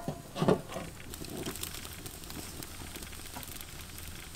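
Wood fire crackling softly with faint ticks under a lidded wok of simmering soup, after a brief louder knock about half a second in.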